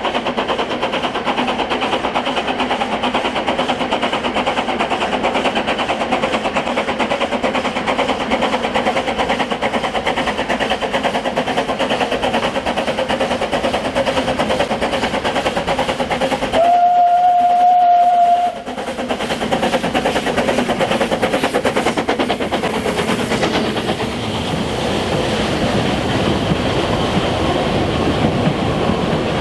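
Narrow-gauge steam train running, its wheels clattering on the rails, with one loud steam whistle blast lasting about two seconds just past halfway.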